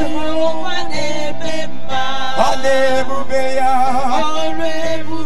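Church worship singing: a voice singing a slow melody with wavering vibrato over sustained chords held underneath.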